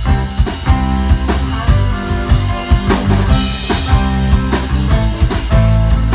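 Live rock band playing amplified: electric guitar and bass guitar over a drum kit keeping a steady beat, with a cymbal wash a little past halfway.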